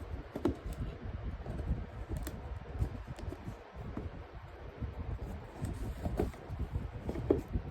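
A gaming mouse and its packaging being handled: scattered light clicks and rustles over a steady low rumble.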